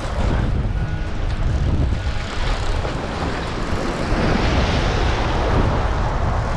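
Wind buffeting the microphone with a steady low rumble, and a small wave breaking and washing over the rocky reef from about four seconds in.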